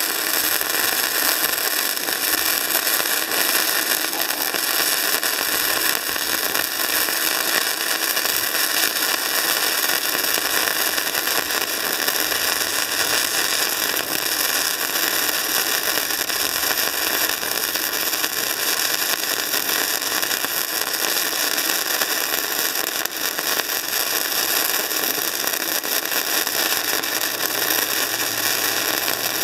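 Gasless MIG welding arc burning self-shielded flux-cored wire: a steady, dense crackle and hiss that runs on without a break.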